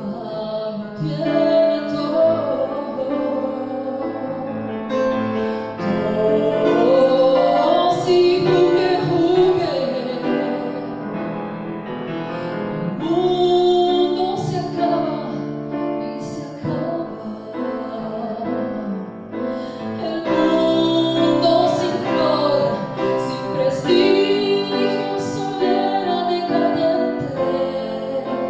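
A woman singing a song in Spanish, a melodic vocal line over sustained piano accompaniment.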